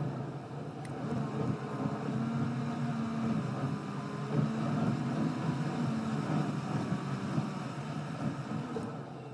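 A car's driving noise heard from inside the cabin, sped up about sixfold: a steady rumble of road and engine noise with wavering tones in it. It gets quieter near the end.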